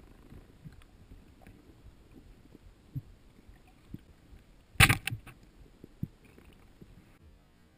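Speargun fired underwater: one sharp burst of clacks about five seconds in, over a low underwater background with scattered small clicks.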